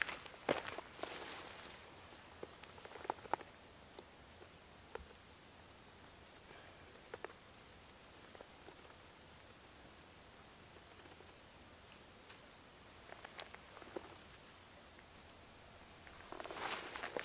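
Insects singing: a high-pitched buzzing song that comes in repeated bursts of about a second, with short pauses between. Light rustles and clicks of leaves and stems being handled among blackberry bushes come near the start, once or twice in the middle and near the end.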